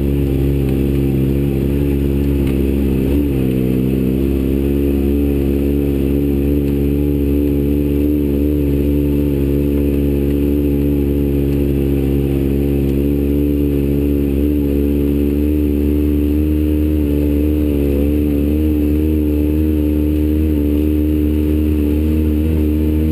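Off-road vehicle's engine running at low, steady revs as it crawls over a rocky trail, picked up close from the hood, with a brief dip and recovery in revs about three seconds in.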